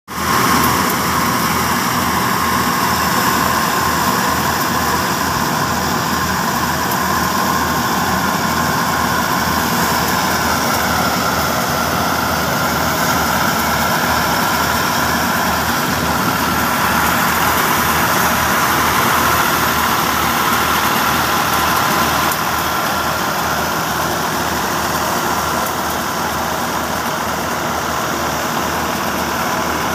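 New Holland 480 tractor's diesel engine running steadily, belt-driving a stationary thresher, with a steady whine over the engine's even pulse. The sound drops a little in level about two-thirds of the way through.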